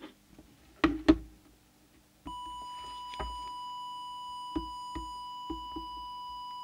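Two sharp clicks about a second in, then a steady, continuous electronic test tone from an audio oscillator starts, the modulation tone used to set the CB transmitter's deviation, with a few faint ticks over it.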